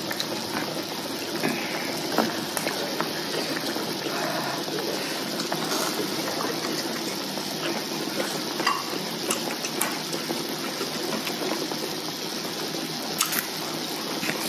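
Hotpot broth bubbling at a steady boil in a two-compartment electric hotpot, a constant hissing bubble with a few light clicks of utensils.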